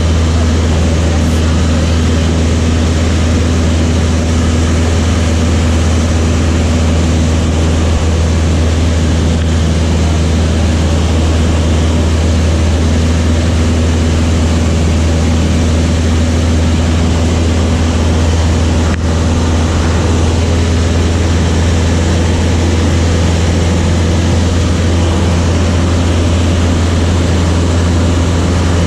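Light propeller training aircraft's piston engine and propeller droning steadily at a constant setting, with one faint click about two-thirds of the way through.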